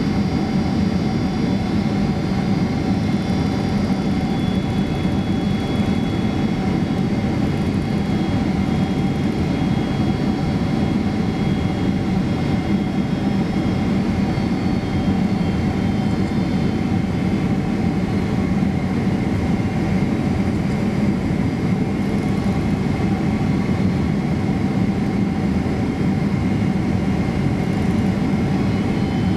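Steady cabin noise inside a Boeing 767-300 airliner descending on approach: a continuous rush of airflow and jet engine hum, with several steady whining tones and a few high ones slowly drifting in pitch.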